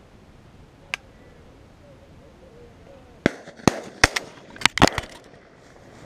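Shotgun fire: a rapid string of sharp reports, about seven in under two seconds, starting about halfway through, after a single faint crack about a second in.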